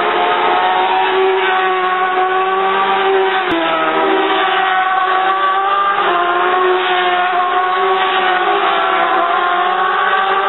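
Racing motorcycle engines running at high revs on the circuit, several engine notes overlapping and sliding up and down in pitch, with a short dip in pitch about three and a half seconds in.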